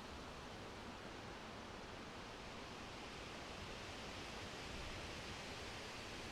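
Wind blowing through a summer forest, the leafy trees giving a soft, steady rustle that swells slightly after about four seconds.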